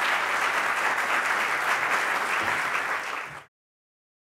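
Audience applauding, a dense steady clapping that cuts off suddenly about three and a half seconds in.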